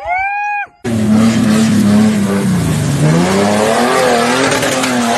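A short rising tone, then a motor vehicle engine cuts in abruptly, revving hard over loud rushing noise, its pitch dipping about two seconds in and climbing again.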